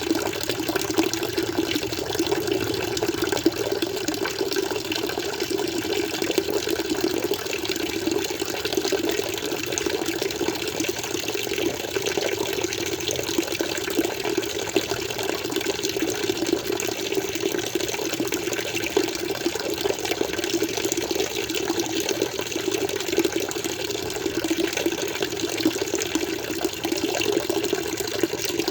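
Water flowing and splashing steadily in an even, unbroken stream.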